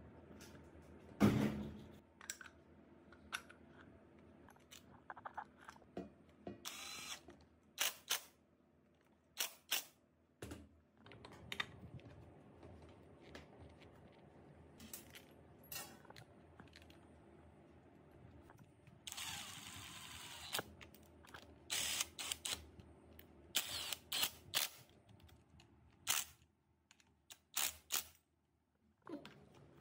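Small metal parts of an electric starter motor clicking and clinking as they are handled, fitted together and mounted on the engine case, in a string of separate short knocks. About two-thirds of the way through, a power tool runs steadily for about a second and a half.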